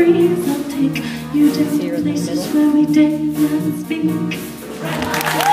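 Mixed show choir singing a song in several-part harmony; the singing stops about four and a half seconds in and audience applause and cheering break out near the end.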